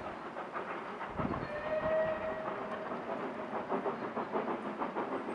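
A train of goods wagons rolling along the track, wheels clattering in a quick, irregular run of clicks and knocks. A brief steady high note sounds about a second and a half in.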